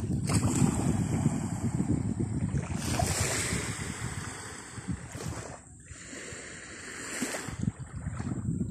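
Wind buffeting the microphone, an uneven gusty rumble that eases off about halfway through and picks up again near the end.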